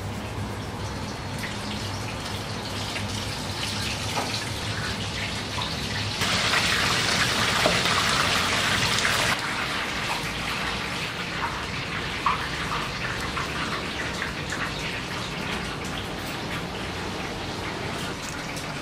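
Water running from a tap for about three seconds midway, starting and stopping abruptly, over a steady low crackling hiss with small clicks.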